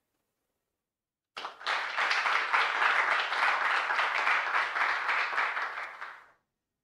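Audience applauding. The clapping starts after a second and a half of silence, holds steady for about four seconds and dies away shortly before the end.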